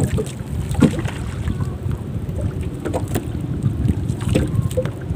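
Wind buffeting the microphone on a small boat at sea, a steady low rumble, with a few short knocks at about one, three and four seconds in.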